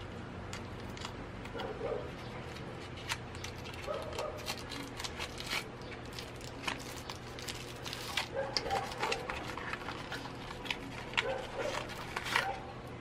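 Cardboard box parts and a small plastic bag crinkling and clicking as the earbud packaging is handled and unpacked, with a few short whine-like squeaks spread through it.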